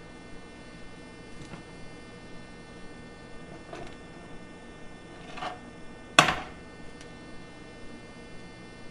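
A skillet handled on a glass-top electric stove: a few faint clicks, then one sharp metal clank against the cooktop about six seconds in. A steady electrical hum runs underneath.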